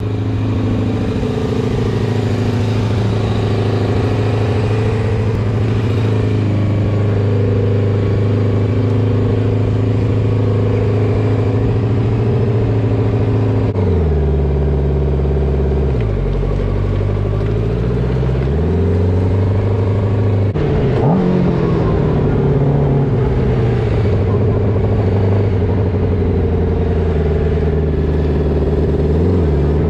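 Honda CBR600 inline-four motorcycle engine in a shifter kart, idling steadily for about the first half. It then pulls away at low revs, the pitch dipping and rising with a short blip, and revs up near the end as the kart accelerates.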